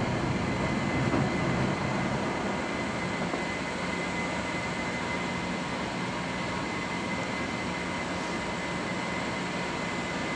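Steady flight-deck noise of an Airbus A330 at takeoff thrust: engine and airflow noise with a few faint steady tones, easing slightly over the first couple of seconds and then holding level.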